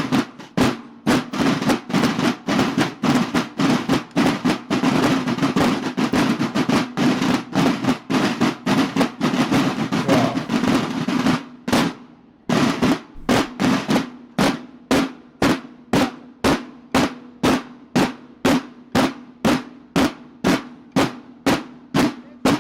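Mexican banda de guerra snare drums playing a march: regular strokes, a long sustained roll through the middle, a brief break, then steady beats about two a second.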